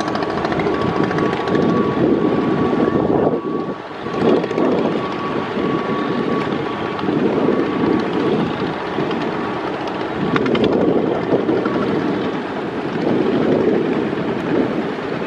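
Diesel engines of a large river passenger launch running with a steady, low drone, mixed with wind noise on the microphone. A faint steady whine sits above the drone, and the sound dips briefly about four seconds in.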